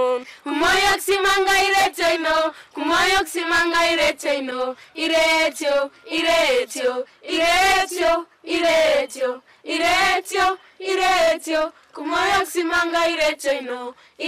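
A group of children singing together in short, evenly spaced phrases, each held on steady notes for about a second with brief pauses between.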